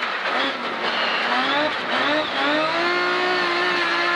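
BMW Compact rally car's engine at full throttle, heard from inside the cabin. The revs drop sharply as it changes up near the start and again just before two seconds in, climb after each shift, then hold high over the crunch of the gravel under the tyres.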